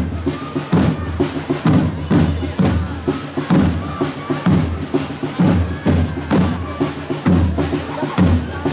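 A group of parade drums playing a steady, rhythmic marching beat, with crowd chatter underneath.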